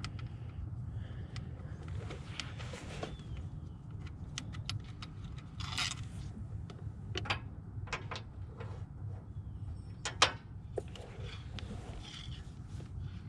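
Metal hand tools and parts clinking and clicking during work on a Jeep's ignition coil pack: scattered sharp clicks and short jingles, the loudest about ten seconds in, over a steady low hum.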